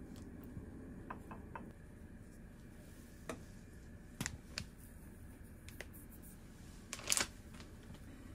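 Faint scattered clicks and light taps of utensils against a ceramic dish and a plastic food container while food is plated, over quiet room tone; the loudest little cluster of clicks comes near the end.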